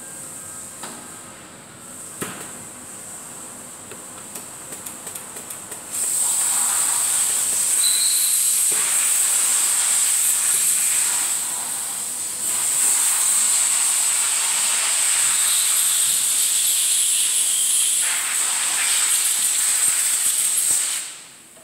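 Loud, steady hiss of air from the PE film sealing machine that starts about six seconds in, dips briefly midway and cuts off near the end. Before it come light clicks of film and the flange being handled on the metal table.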